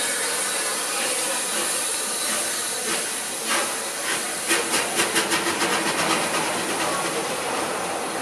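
Merchant Navy class steam locomotive 35018 British India Line hissing steam. About three seconds in, a run of short exhaust beats begins and quickens to about six a second as the engine moves off.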